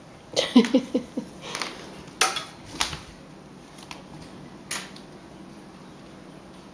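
Pet playing with a bird toy: a quick run of four or five short pitched sounds, then scattered knocks and clatters.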